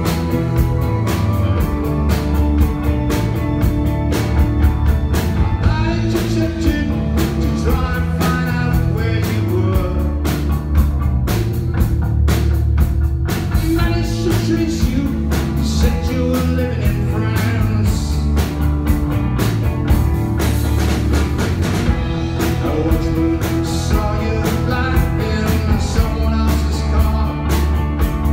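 Live rock band playing: electric guitar and bass guitar over a steady beat, with a man singing lead at times.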